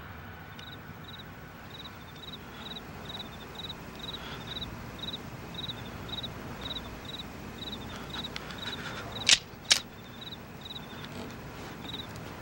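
Crickets chirping steadily, about three chirps a second. Two sharp clicks less than half a second apart, about three-quarters of the way through, stand out as the loudest sounds.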